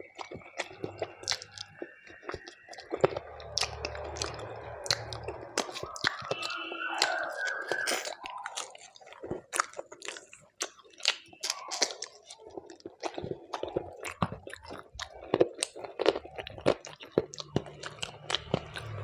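Close-up chewing and crunching of a meal of khichuri, fried vegetables and chicken, with many irregular wet clicks and bites. A faint wavering tone sounds in the background during the first half.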